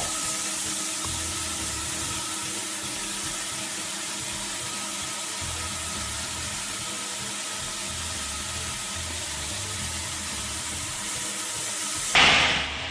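Steady hiss like spraying or running water, with quiet background music underneath. A brief louder whoosh comes near the end.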